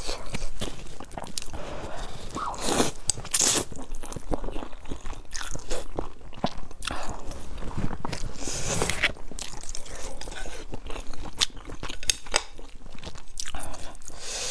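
Close-miked eating of stir-fried instant noodles: mouthfuls slurped in and chewed, with many small wet mouth clicks and a couple of longer slurps.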